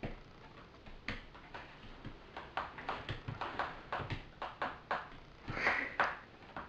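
Soft, irregular clicks and knocks, two or three a second, with a short breathy hiss shortly before the end.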